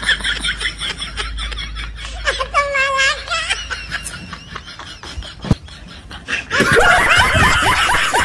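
A person laughing in short rapid bursts. A louder stretch of laughter starts near the end.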